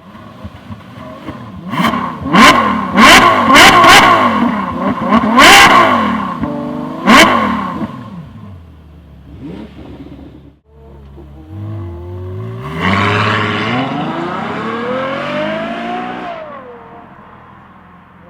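Ferrari 6.3-litre naturally aspirated V12 revved hard in a series of quick blips, with sharp loud cracks on several of them. Then, after a sudden cut, the V12 accelerates: its note climbs steadily for a few seconds and then drops away.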